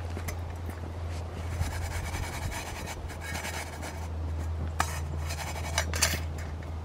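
A utensil scraping and pushing a biscuit across a frying pan, with a few sharp clicks near the end, over a steady low hum.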